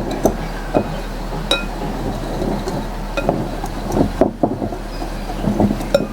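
Dry baking ingredients being stirred together in a bowl: a steady scraping rustle broken by scattered clinks and taps of the utensil against the bowl.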